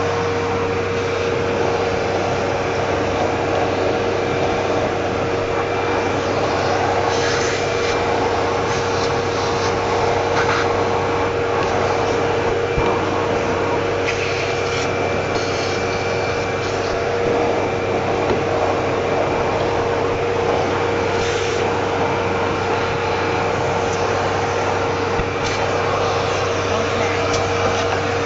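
Vacuum cleaner running steadily with a constant hum, worked over a dusty refrigerator condenser coil, with scattered short rubbing and scraping sounds from the brushing over the motor noise.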